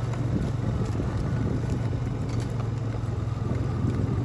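Four-wheeler (ATV) engine running at a steady, low speed while it is ridden, a constant low drone with no revving.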